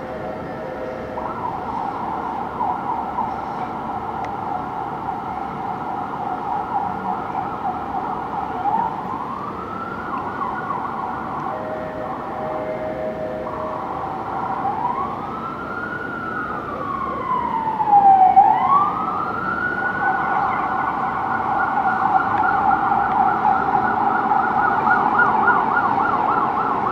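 Emergency vehicle's electronic siren sounding while responding. It switches between a fast warbling yelp and a slower wail that rises and falls, then goes back to the fast yelp near the end.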